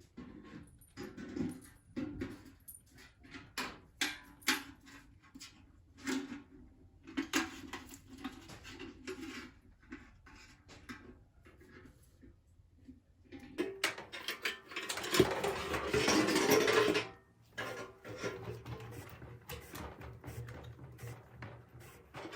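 Household handling sounds: scattered knocks and clinks, then about three seconds of louder rushing noise in the second half.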